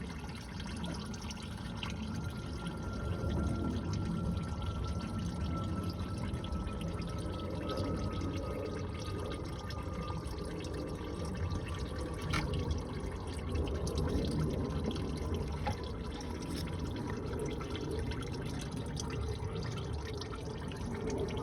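Gearbox oil running and dripping steadily out of a DQ500 seven-speed DSG transmission housing while the mechatronic unit is being removed, with a single sharp click about twelve seconds in.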